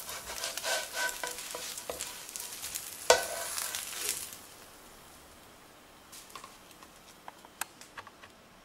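Fenugreek dosa sizzling in oil on a nonstick skillet while a wooden spatula scrapes under it and folds it, with one sharp knock about three seconds in. The sizzling fades out about four seconds in, leaving a few faint clicks.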